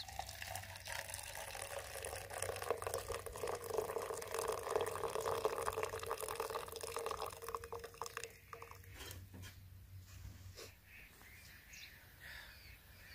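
Hot milk tea poured from a cooking pot into a stainless-steel mug, a steady trickling stream that stops about eight and a half seconds in.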